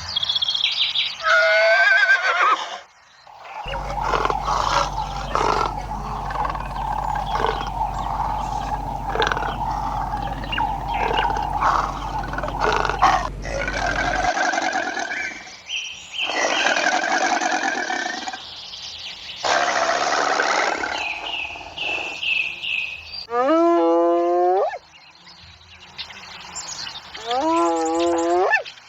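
A run of different animal calls one after another: a long rough stretch of calling with a low hum under it, then shorter calls, ending with two short pitched cries that dip and rise in pitch.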